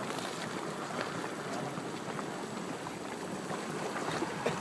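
Hot spring water bubbling and churning steadily in a geothermal pool, with small pops and gurgles.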